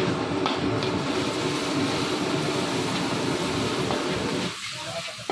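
A gas wok burner's steady low rush under a steel wok as egg is stir-fried, with a few light scrapes and taps of a metal spatula on the wok near the start. The rushing noise drops away sharply near the end.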